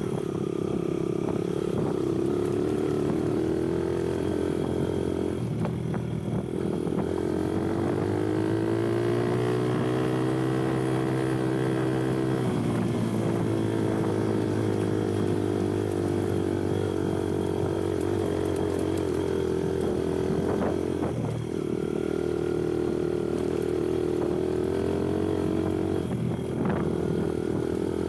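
Kuba Black Cat dirt bike engine running under way while riding. Its pitch climbs steadily for a few seconds past the middle, then drops off sharply. The engine note dips briefly a few other times as the throttle is eased or the gears change.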